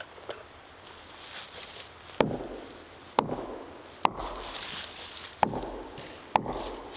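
Five sharp hammer blows on a fallen tree trunk, about one a second, each with a short ring.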